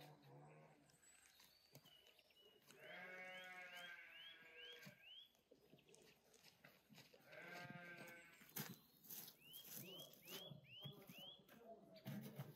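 Two drawn-out bleats from livestock, about four seconds apart, each lasting one to two seconds. In between, a small bird repeats short rising call notes in quick runs, and a few faint knocks come near the end.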